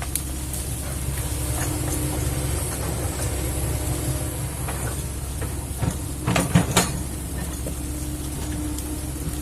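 Kobelco excavator's diesel engine running steadily. A short cluster of sharp knocks comes about six and a half seconds in.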